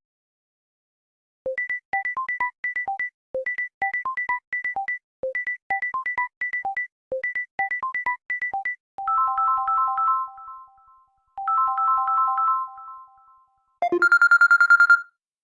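Samsung Galaxy A51 ringtones and alert tones playing in turn: a short electronic melody of quick high notes after a low note, repeated four times, then two longer chimed chords that fade out, then a fast pulsing high beep near the end.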